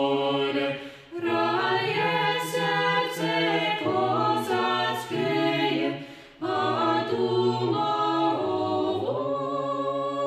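Small mixed-voice a cappella choir, women and men, singing a Ukrainian-language piece in Ukrainian folk-choir style, in sustained close-harmony chords. The singing breaks off briefly twice, about a second in and again around six seconds, before the next phrase comes in.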